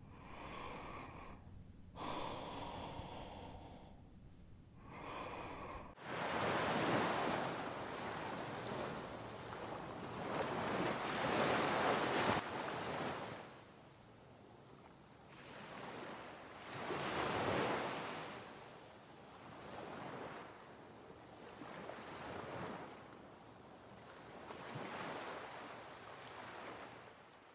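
Three heavy, gasping breaths, then about six seconds in an abrupt change to ocean surf: waves breaking and washing in on the beach, swelling and falling every few seconds.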